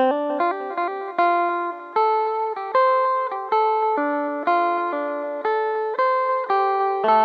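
Phin, the Isan two-string plucked lute, playing a melody of single plucked notes at roughly two a second, each ringing on until the next is struck.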